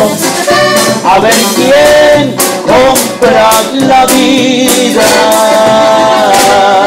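Live regional Mexican band music: a man singing into a microphone over guitar and band backing, settling into a long held chord about five seconds in.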